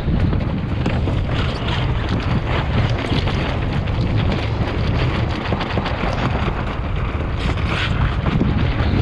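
Strong wind buffeting the microphone aboard a small open sailing boat, a continuous low rumble with gusty flickers, over the rush of a choppy sea around the hull.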